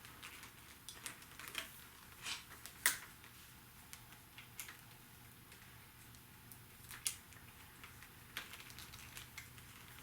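Faint, sparse clicks and light rustling from handlebar wiring and its connectors being handled and fed through the bars, with one sharper click about three seconds in.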